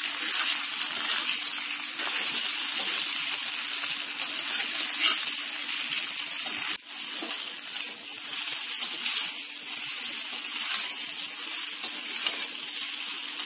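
Slices of steamed wheat-flour and chana dal rolls (phare) frying in hot mustard oil in a metal kadhai: a steady sizzle, with a metal spatula scraping and turning them in the pan now and then.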